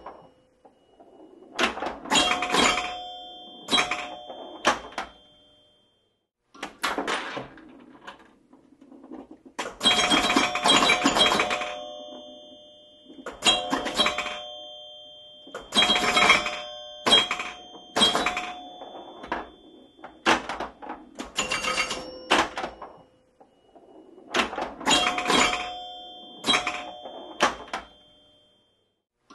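Pinball machine in play: clusters of sharp mechanical knocks with bell tones ringing on after them, coming in bursts every couple of seconds, with one short silent pause.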